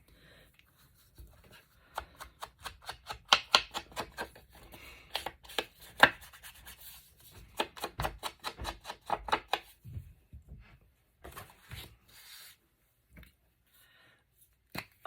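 Paper being handled and rubbed on a work surface: a run of short scraping rustles, busiest for the first ten seconds or so, then only a few scattered ones.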